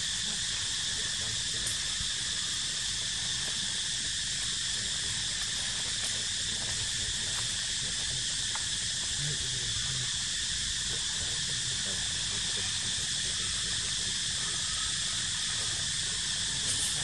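Steady chorus of insects, a high, even buzzing hiss that does not let up, over a low rumble.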